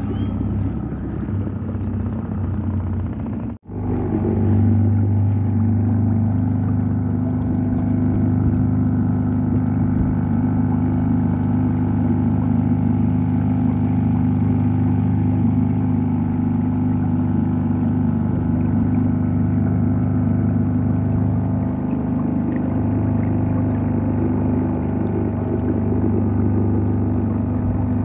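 Boat's outboard motor running steadily, a low even drone. It drops out for an instant about three and a half seconds in and then runs on a little louder.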